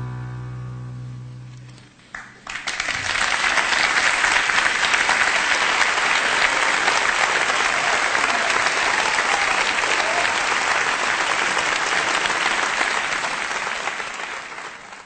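A bandoneón's final held chord fades out. About two seconds in, an audience breaks into applause, which holds steady for some twelve seconds and tapers off near the end.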